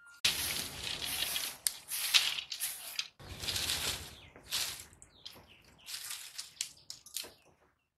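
Thin dry sticks rustling and clattering as they are gathered by hand into a bundle, loudest in two long stretches in the first half, then a few lighter clicks and taps.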